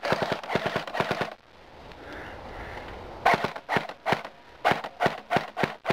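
Dboys Scar-L airsoft electric gun firing: a quick string of shots in the first second and a half, then after a short pause a further run of sharp single shots, several a second.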